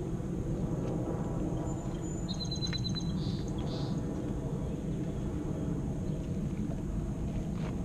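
Propane foundry burner running with a steady low roar. About two seconds in, a bird gives a short, high, rapid trill over it.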